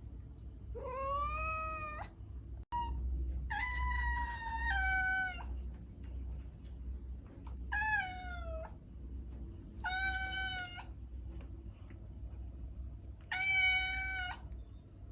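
Domestic cat meowing: five separate drawn-out meows a few seconds apart, each about a second long. The fourth meow falls in pitch at its end.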